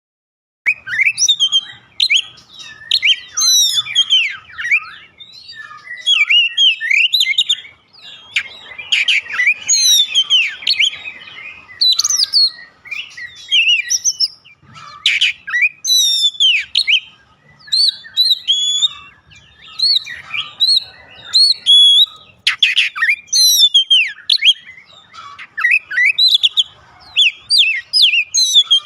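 Oriental magpie-robin (kacer) in full song: a fast, varied run of whistles, chirps and slurred notes in short phrases with brief gaps, starting just under a second in.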